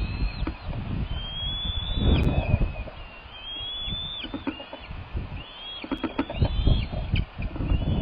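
Bald eagles calling: a run of high, thin whistled calls, each drawn out briefly and dropping off at the end, several in quick succession after about five seconds. Gusty wind buffets the microphone underneath.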